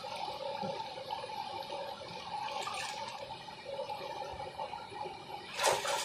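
River water flowing steadily over rocks, an even rushing noise. A short, much louder noise cuts in near the end.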